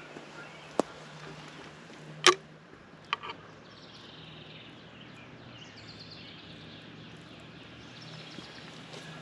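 Forest dawn ambience: a few sharp clicks in the first three seconds, the loudest about two seconds in, then a songbird's long run of high, repeated notes that slowly fall in pitch, over a steady low hum.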